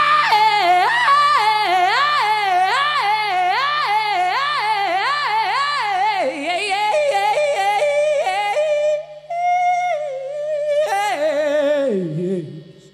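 A high male voice singing a wordless, yodel-like vocal run, warbling rapidly up and down about twice a second. Near the end it settles on a long held note, then drops through a falling phrase, over a faint steady low note.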